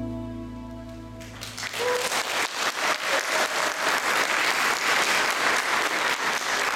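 The last held chord of the dance music fades out, and audience applause breaks out about one and a half seconds in and keeps going.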